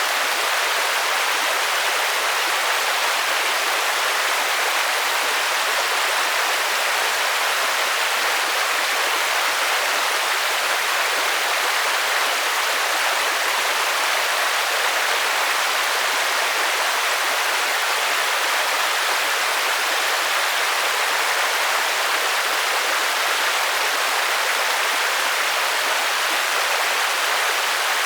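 Steady rainfall: an even, unbroken hiss with no thunder or single drops standing out.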